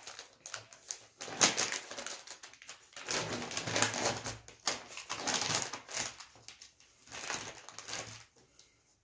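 Crinkling plastic wrapper of a disposable face mask being pulled open and handled, in several bursts of rustling.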